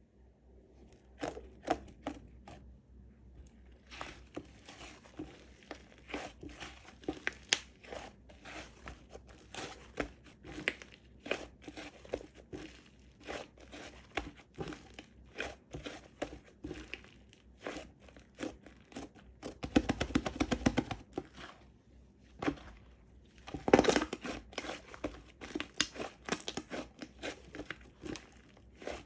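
Slime being kneaded and pressed by hand, giving a steady run of small sticky clicks and crackles. Two denser, louder squelching stretches come about two-thirds of the way through and again a few seconds later.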